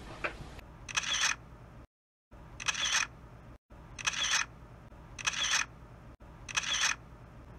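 Camera shutter sound effect, clicking five times at intervals of about one to two seconds, with abrupt drops to silence between some of them.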